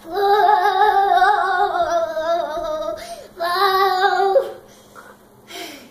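A young girl singing without words: one long held note that wavers slightly for about three seconds, then a second, shorter note about three and a half seconds in.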